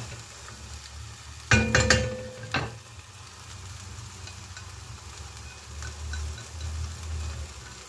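Onion-and-spice paste frying softly in a pot, with a quick run of loud utensil clinks against the pot about one and a half to two and a half seconds in, as the powder masala goes in.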